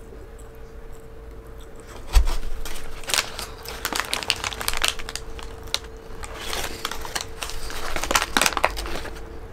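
Paper hamburger wrapper crinkling and rustling as the burger is gripped and bitten into, starting about two seconds in with a thump and going on in irregular crackling bursts until near the end.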